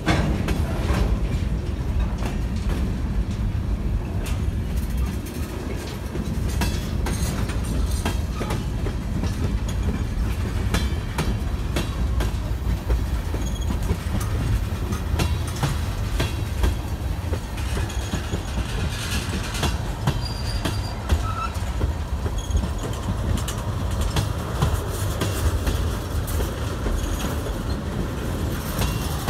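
Freight cars rolling past at close range, centerbeam flatcars and then tank cars being shoved back into the yard: a steady low rumble of steel wheels on rail with frequent clicks and clanks as the wheels cross rail joints. A few brief high squeaks come about two-thirds of the way through.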